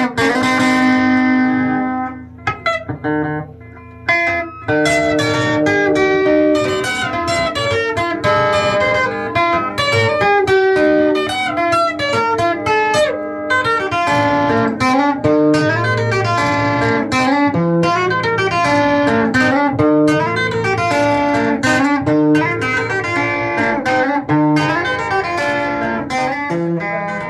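Instrumental band music led by plucked guitars. A held chord fades out and is followed by a brief quieter stretch. About four seconds in, quick picked guitar lines start over a moving bass line and run on steadily.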